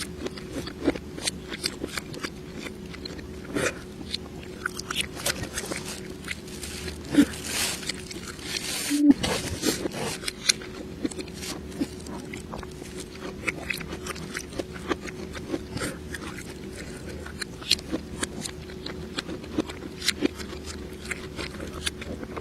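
Close-miked mukbang eating sounds, played backwards: irregular crunching, biting and chewing clicks and smacks over a faint steady hum, with a brief cut-out about nine seconds in.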